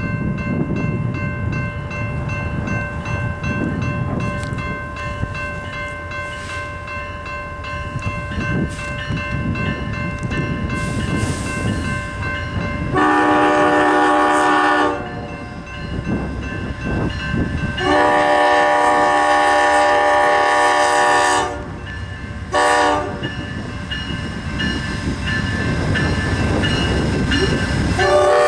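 Amtrak GE P42DC passenger locomotive's horn sounding the grade-crossing pattern: a long blast, a second long blast, a short one, and a long one beginning near the end. Under it runs the low rumble of the approaching passenger train.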